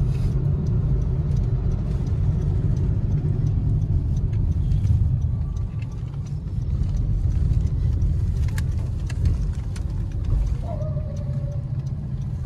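Steady low road and engine rumble inside the cabin of a moving Honda Amaze car, with a few faint clicks.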